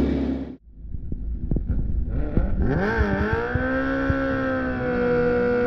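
Suzuki Hayabusa's inline-four engine at the start line: low pops at first, then revved up and down once and held at steady, elevated revs.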